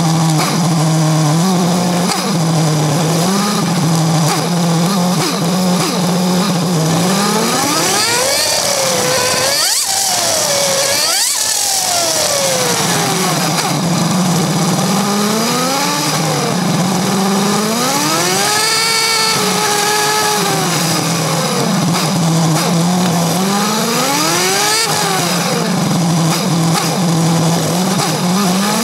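Suzuki GSX-R750 sport bike's inline-four engine running at low revs, revved up and let back down several times.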